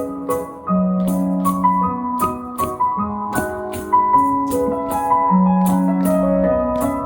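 Live band playing an instrumental passage of a waltz: keyboard melody and chords over a bass line, with a steady light percussion tick.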